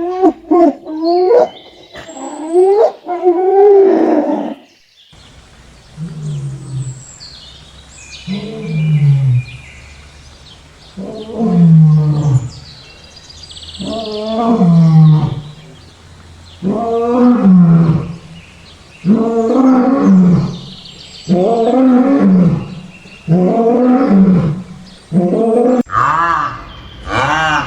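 Lion roaring: a bout of deep roars repeated about once every two seconds, each falling in pitch. A different animal call fills the first few seconds.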